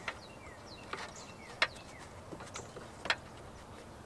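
Hands pushing foam padding into a truck door frame: soft rustling and a few sharp clicks, the loudest two about a second and a half apart near the middle and end. Birds chirp faintly in the background.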